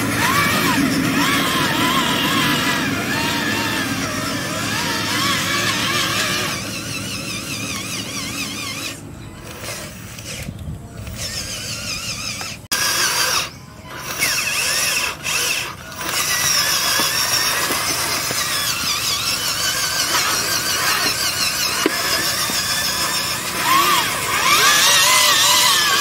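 Small electric motors and gearboxes of radio-controlled model dump trucks whining, the pitch wavering up and down as they drive. The sound cuts out briefly several times in the middle.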